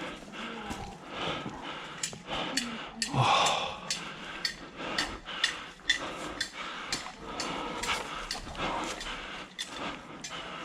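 A person breathing hard and panting while running, with many short sharp knocks and clicks throughout.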